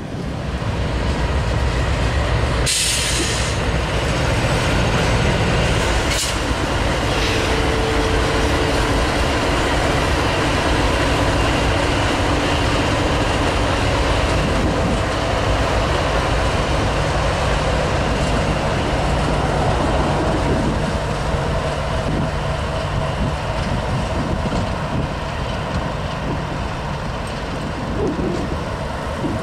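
Diesel freight train passing close by: locomotive engines running and hopper cars rumbling over the rails, with a short steady squeal about seven seconds in.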